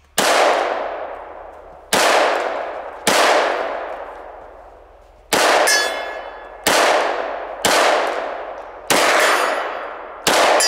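Glock 22 pistol in a micro conversion kit firing .40 S&W in slow fire: eight shots at uneven gaps of one to two seconds, each trailing off in a long echo.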